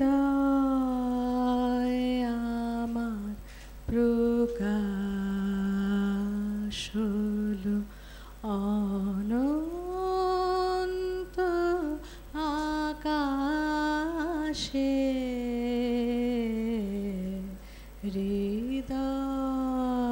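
A solo voice singing a slow melody in long held notes that waver slightly, in phrases of a few seconds with short breaths between them.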